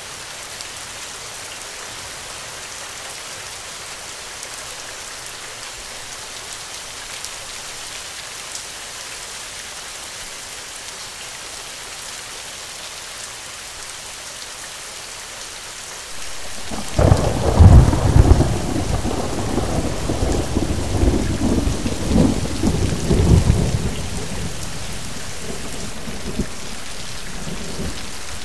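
Steady rain falling, and a little past halfway a loud thunderclap breaks in and rumbles on in swells for several seconds before dying down under the rain.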